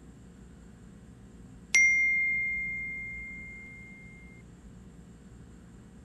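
A smartphone's text-message notification chime: a single clear ding that rings out and fades over about two and a half seconds, against faint room hiss.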